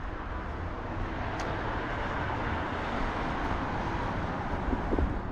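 Road traffic: a steady hiss of tyres and engines from cars on the street, swelling a little in the middle as a vehicle goes by.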